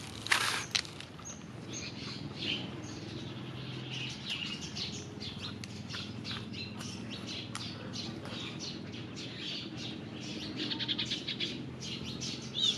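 Small birds chirping and twittering on and off, with a quick run of twitters near the end, over a low steady hum.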